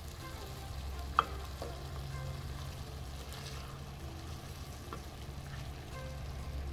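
Mutton curry in a coconut-milk sauce simmering and faintly sizzling in a pan while a wooden spoon stirs through it, over a steady low hum. A single sharp knock comes about a second in.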